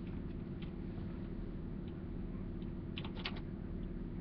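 A few soft computer-keyboard key clicks, two close together about three seconds in, over a steady low electrical hum.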